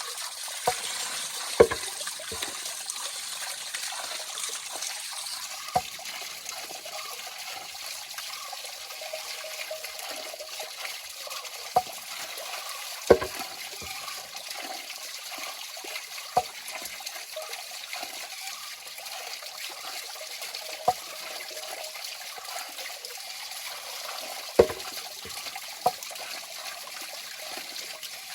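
River water flowing and trickling over rocks, a steady rush with a sharp click or plop every few seconds.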